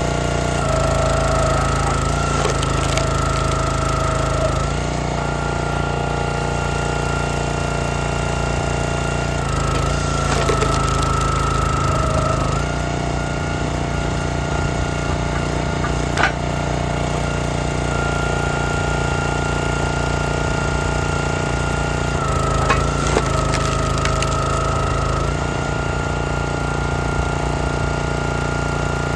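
Small gasoline engine running steadily, its pitch dropping and recovering every few seconds as load comes on and off, with occasional sharp wood knocks.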